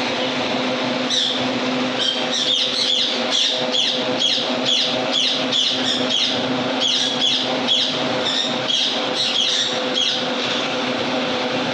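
Pet parrots giving a rapid series of short, sharp chirping calls, about two or three a second, over a steady mechanical hum.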